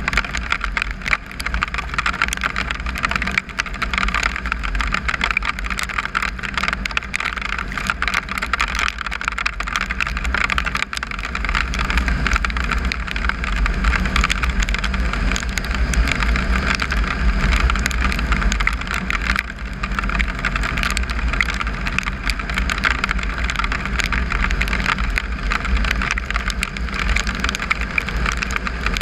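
Triumph Tiger 955i's three-cylinder engine running at a steady cruising speed, with heavy wind rumble on the microphone and tyres on gravel.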